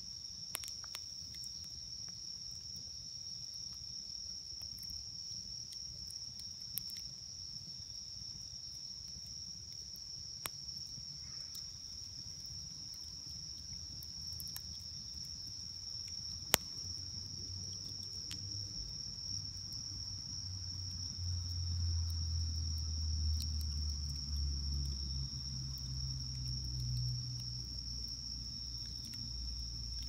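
Crickets singing in a steady high trill, with a few sharp pops and crackles from a burning wood campfire, the loudest just past halfway. A low rumble comes in during the second half.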